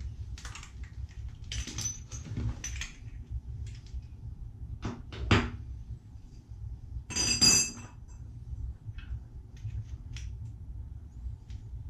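1/2-inch copper pipe being cut with a tubing cutter: scattered scraping clicks and knocks as the cutter is worked, a sharp knock about five seconds in, and a brief ringing metallic clink about seven seconds in.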